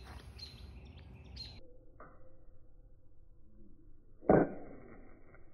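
A steel fire striker struck once, sharply, against the edge of a flint about four seconds in, throwing sparks onto char cloth held on the flint. Small birds chirp in the first second and a half.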